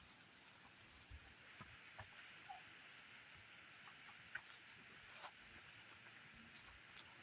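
Near silence with a faint insect chorus: a steady high buzz and a regular chirping about twice a second, broken by a few soft clicks.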